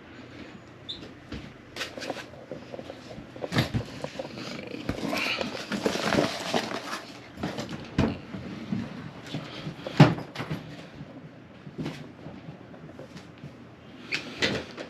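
Hard plastic and metal clicks and knocks as a worn Rimowa suitcase wheel is worked loose and taken apart with a removal tool. There is a rough scraping stretch midway and a sharp knock about ten seconds in.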